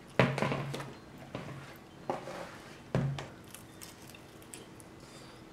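People biting into and chewing sauced chicken wings: about four sudden, wet mouth sounds in the first three seconds, the first the loudest.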